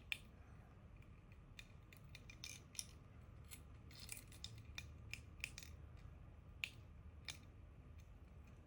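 Faint, irregular small plastic clicks and taps as a Tobot keycap figure is handled and its key pressed to work it.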